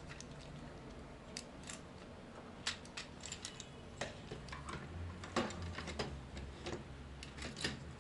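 Plastic parts of a Transformers combiner figure being handled and fitted together: scattered small clicks and taps, a few sharper ones past the middle.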